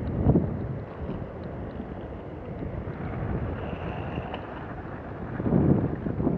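Wind buffeting an action camera's microphone while skating, over the steady rumble of inline skate wheels rolling on asphalt; the wind gusts louder just after the start and again near the end.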